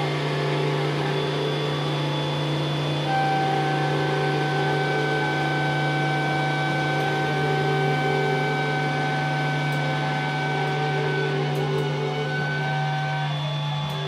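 Experimental drone music: layered sustained tones over a steady low hum. About three seconds in, two higher held tones enter, and they fade out near the end.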